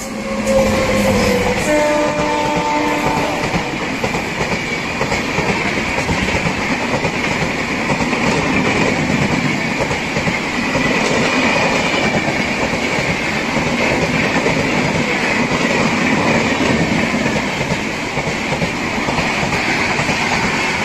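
WAP7 electric locomotive of a Rajdhani Express sounds its horn in two blasts of different pitch as it arrives. Then its coaches rush past with a steady loud rumble and wheel clatter on the rails.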